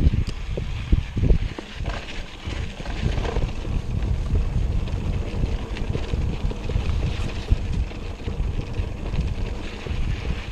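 Wind buffeting the microphone of a camera riding along on a bicycle: a low, uneven rumble with a few sharp knocks, loudest near the start and about a second in.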